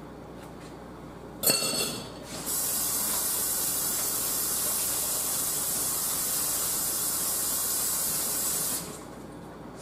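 Water running from a kitchen tap for a hand wash: a short burst of noise about a second and a half in, then a steady hiss of running water that shuts off near the end.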